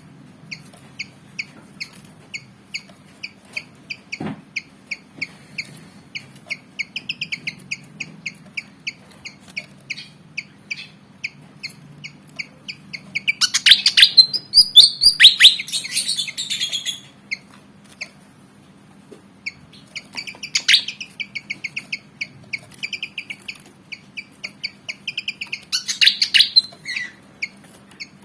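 Malaysian pied fantail (kipasan jawa) calling: long runs of rapid, evenly repeated high chipping notes, broken by louder, harsher bursts of song about halfway through, briefly again a few seconds later, and near the end.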